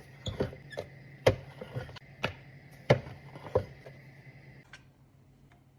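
Kitchen clatter: about six sharp knocks and taps over a steady hum, the hum cutting off about four and a half seconds in.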